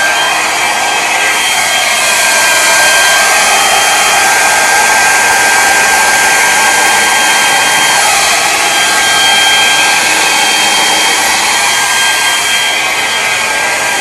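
Hair dryer running steadily: a rush of air with a high motor whine.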